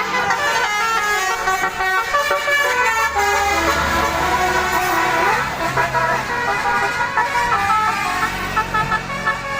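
Telolet Basuri multi-tone bus horn playing a fast melody, a quick run of short stepped notes.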